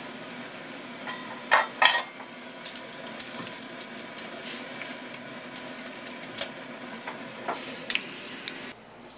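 Water boiling in a metal pot on a gas burner while pufferfish pieces are blanched, with a steady bubbling hiss. Several sharp metal clanks against the pot come through it, the loudest two close together about one and a half to two seconds in. The boiling sound cuts off suddenly near the end.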